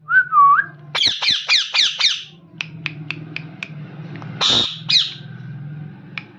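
Parrot calling: a short wavering whistle, then a quick run of about five harsh falling screeches, a string of short sharp chirps, and a loud squawk about four and a half seconds in. A faint low steady hum runs underneath.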